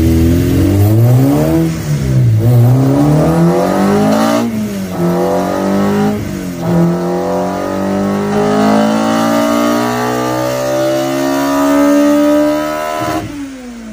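A K-swapped Honda Civic's K20 inline-four engine being run hard on a chassis dyno. The revs dip and climb in the first few seconds, then the pitch climbs steadily for about eight seconds in a full-throttle power run, and the engine note falls away suddenly near the end as the throttle closes.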